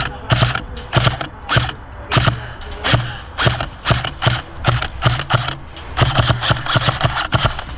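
Airsoft electric rifle (AEG) firing in short bursts, about one every half second, each a quick clatter of shots over the gearbox motor's hum, with a longer burst near the end.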